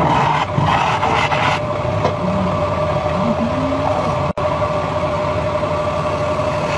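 Wood lathe running with a steady motor hum while a turning tool scrapes into the end of the spinning wood blank, the cutting noise easing off about a second and a half in. The sound drops out for an instant a little past four seconds.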